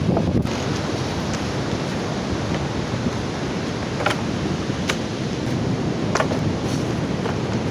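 Steady rushing of strong wind and surf on the beach, with the wind blowing on the microphone and a few faint ticks about two-thirds of the way through.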